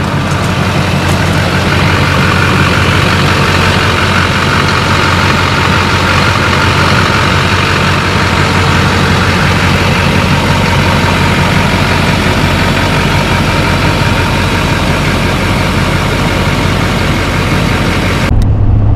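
2004 LLY Duramax 6.6-litre V8 turbo diesel running steadily at idle through a new 4-inch MBRP turbo-downpipe-back exhaust with no catalytic converter. Near the end it cuts to a duller, deeper engine hum.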